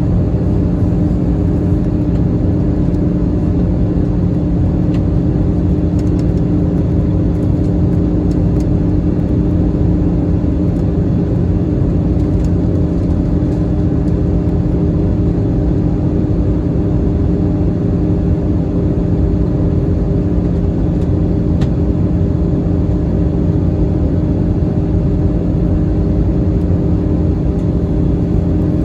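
Steady cabin noise aboard an Airbus A321 airliner in flight: an even rush of airflow under the hum of its CFM56 turbofan engines. There are a few faint clicks.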